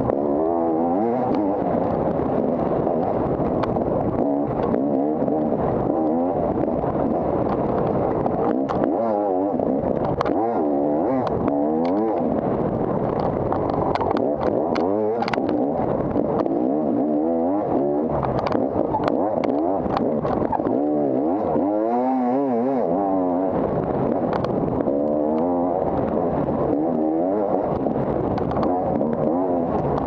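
250 cc dirt bike engine running hard off-road, its pitch rising and falling over and over with the throttle, with scattered sharp clicks and clatter.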